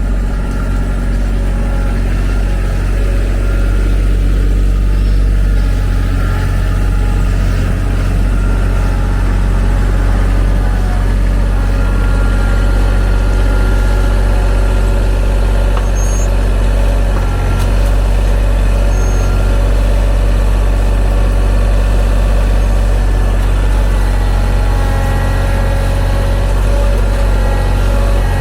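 TYM T313 sub-compact tractor's diesel engine running steadily, a continuous low drone with no let-up.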